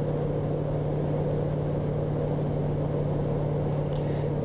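Rotax four-cylinder engine of a Sting light-sport airplane running steadily at high cruise power, about 5,200 RPM, heard from inside the cockpit as an even drone.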